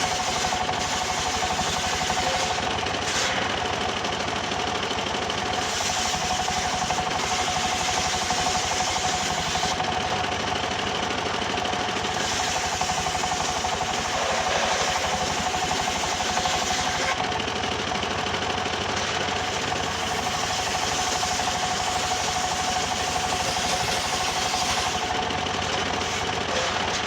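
Engine-driven wood saw running steadily while milling bayur wood, with a constant whine over the engine's rapid pulse.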